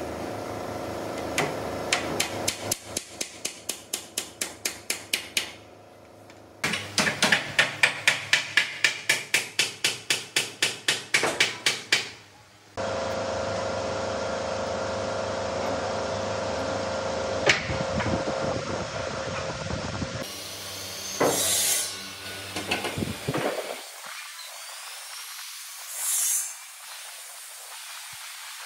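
Rapid hammer blows on wood, about four a second, in two runs. Then a power tool runs steadily with a hum for several seconds, followed by two short hisses.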